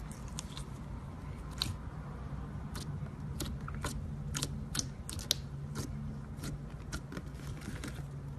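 Slime squeezed and kneaded by hand, making irregular sharp crackles and pops.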